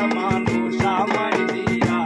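Live acoustic Bengali folk song: a ukulele strummed, a small two-headed hand drum beaten in a steady rhythm, and a man singing the melody.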